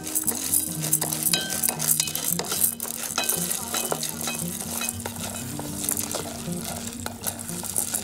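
Wooden spatula stirring unpopped popcorn kernels around an aluminium pot, the kernels scraping and clicking against the metal in many small, quick strokes.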